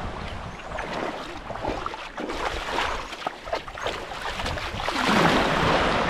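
Wind buffeting the microphone and water splashing against a moving boat, with a louder rush of water about five seconds in.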